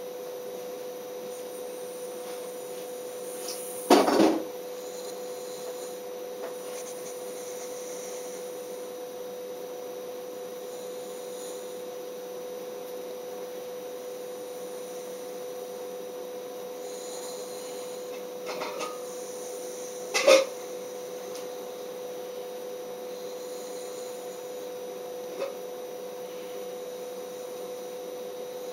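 A steady electrical hum with a few brief rubbing sounds. The two loudest rubs come about 4 seconds in and about 20 seconds in.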